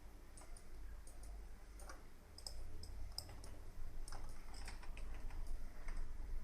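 Computer mouse and keyboard clicks: short, sharp, irregular clicks, some in quick pairs, coming more often in the second half, over a low steady hum.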